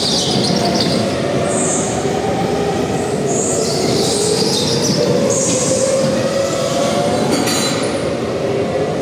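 Go-karts running on a karting track: a steady, loud motor drone whose pitch wavers, with several short high-pitched squeals.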